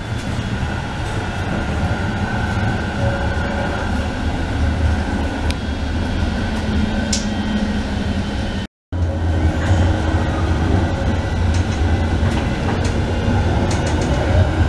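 Tram running, heard from inside the passenger cabin: a steady low rumble of wheels on rails with a steady high whine above it. The sound drops out for a moment about nine seconds in.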